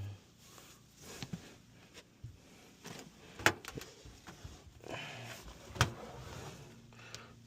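Scattered clicks and knocks with short bursts of rustling, as of hands handling tools and parts; two sharp knocks stand out, about three and a half and nearly six seconds in.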